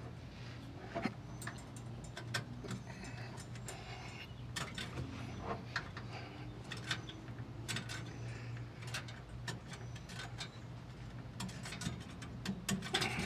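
Scattered irregular clicks and light taps of hands working a rubber fuel hose and its metal hose clamps onto a fitting, over a steady low hum.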